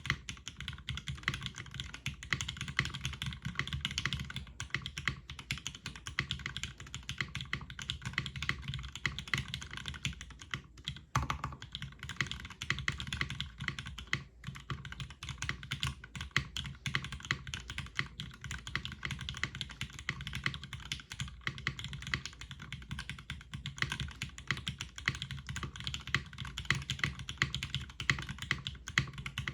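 Steady, fast typing on a custom mechanical keyboard: a zekk.works Ogre with retooled Cherry MX Black linear switches on an aluminum full plate, GMK keycaps and TX stabilizers, keys clacking in a dense, irregular stream.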